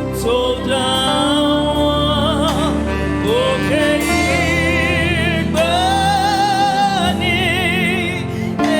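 Gospel praise and worship music: singers holding long notes with vibrato over sustained keyboard and bass chords.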